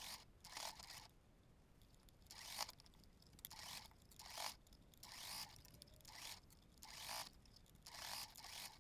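Faint rustling and scraping of gobelin fabric and bias tape being handled, in short strokes about once or twice a second.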